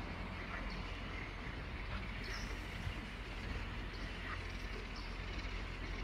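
Open-air wetland ambience: a steady low rumble with a few faint, short bird chirps scattered over it, every second or two.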